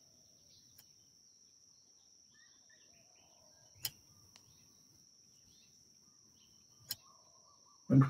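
Quiet pause with a faint steady high-pitched whine and a few faint chirps, broken by two short sharp clicks about four and seven seconds in.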